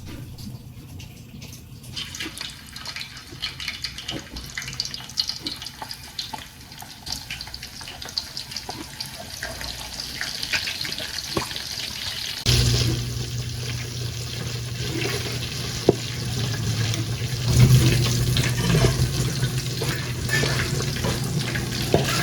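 Water running from a tap into a sink, with a steady noisy rush. About halfway through, a steady low hum starts abruptly and the running gets louder.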